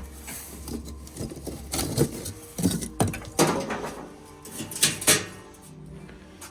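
Irregular knocks and clatters of objects being handled, with several sharp strikes bunched between about two and five seconds in.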